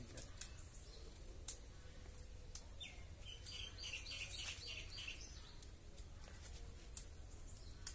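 Faint bird song: a quick run of repeated chirps, about four a second, for two seconds or so in the middle, over a steady low rumble with a few scattered clicks.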